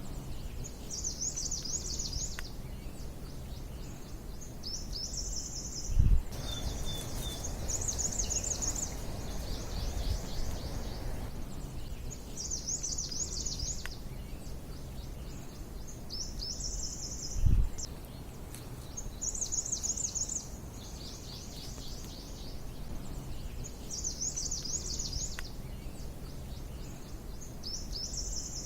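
A songbird repeating the same short, high, trilled phrase about every three to four seconds, over a low rumble. Two dull thumps stand out as the loudest sounds, about six seconds in and again past the middle.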